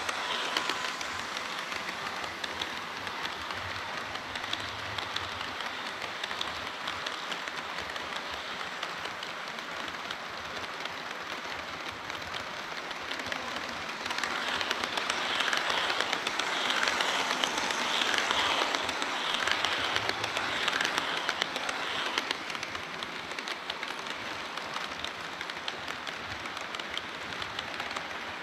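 HO-scale model train running along the layout track, its wheels rattling steadily on the rails. It grows louder from about halfway through as the train passes closer, then eases back.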